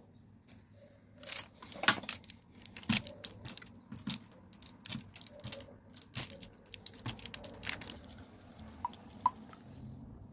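A metal fork crimping the edges of filled dough pastries on a parchment-lined baking tray: a run of irregular sharp clicks and taps that thins out near the end.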